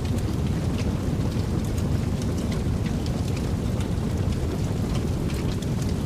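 Fire burning: a steady low rumble of flames with scattered, irregular sharp crackles and pops.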